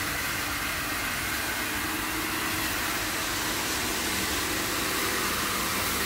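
Steady machine drone with a hiss and a faint whine, holding an even level throughout.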